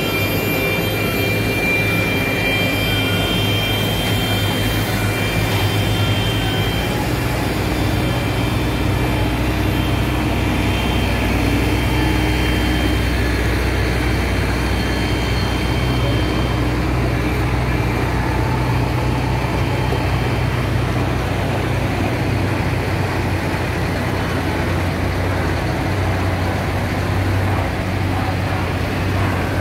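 Diesel engines of a line of wheeled sugarcane grab loaders running steadily: a continuous low engine hum with a rushing noise over it.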